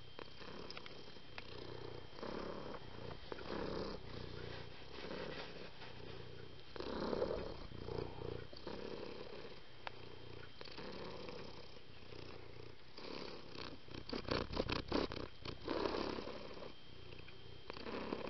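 Domestic cat purring, swelling and easing in a regular rhythm, with a quick run of clicks about fourteen seconds in.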